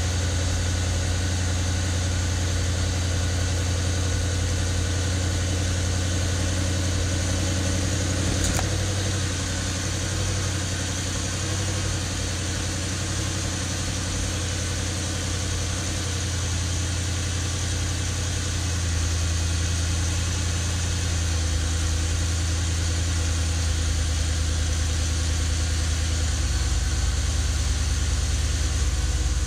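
2010 Dodge Challenger SRT8's 6.1 L Hemi V8 idling steadily through its stock exhaust, with a deep, even low rumble. A single short click about eight seconds in.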